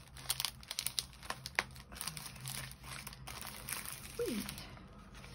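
Clear plastic bag crinkling as a packet of paper ephemera is slid out of it: a run of sharp crackles over the first two seconds, then quieter rustling of plastic and paper.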